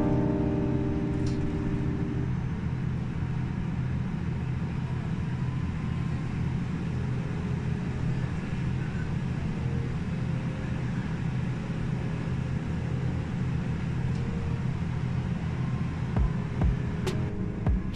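Steady low drone of a city bus's engine and road noise heard from inside the passenger cabin while under way, with a few thumps and rattles near the end.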